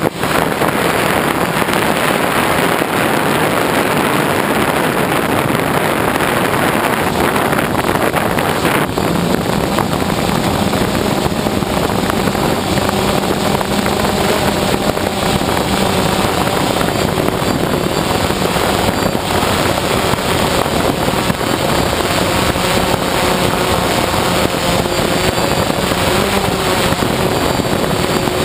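DJI Phantom quadcopter's motors and propellers whirring steadily in flight, heard from the camera mounted on the drone itself: a dense rush of noise with a faint hum underneath that wavers slightly in pitch.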